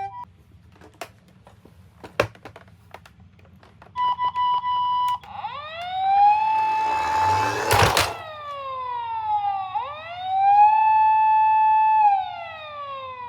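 Electronic siren sound: after a second-long steady beep, a wail rises, holds and falls, then repeats. A loud sharp click falls near the end of the first wail, and faint light clicks come before the siren starts.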